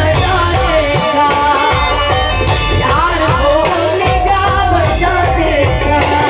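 Live amplified folk music: a woman singing with ornamented, wavering vocal lines, accompanied by tabla and dholak.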